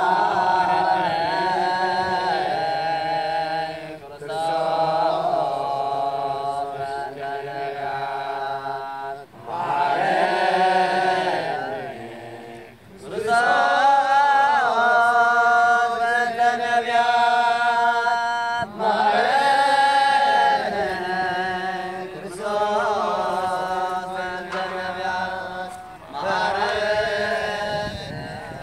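A single voice chanting a prayer in long, ornamented phrases whose pitch glides and wavers, with short pauses between phrases every few seconds.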